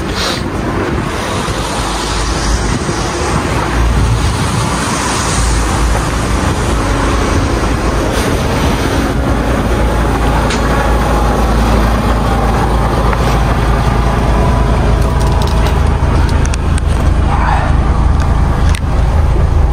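DAF XF 510 truck's PACCAR MX-13 straight-six diesel idling, a steady low rumble that grows louder over the first few seconds and then holds.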